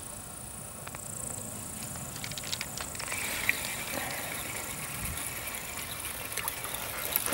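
Wind blowing on the microphone over rippling lake water, with a thin high insect buzz that fades out about six seconds in. A few small clicks and taps come from about two seconds on.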